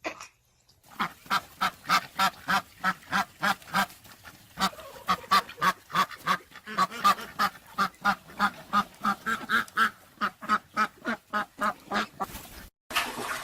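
An animal calling over and over in short, evenly repeated calls, about three a second, stopping abruptly near the end.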